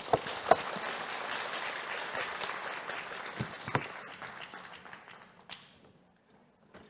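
Audience applauding, the clapping fading out after about five seconds, with a few sharp knocks standing out above it.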